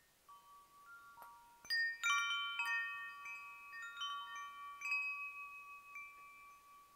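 Chimes ringing: a few light bell-like notes, then a dense cluster of strikes about two seconds in, with the tones ringing on and overlapping as further notes sound.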